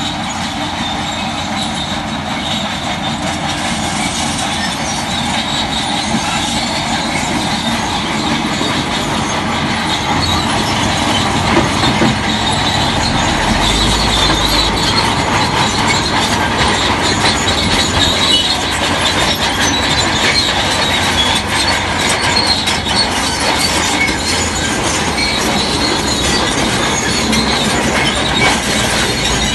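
Bulldozer working: its steel crawler tracks squeal and clatter steadily over its diesel engine running.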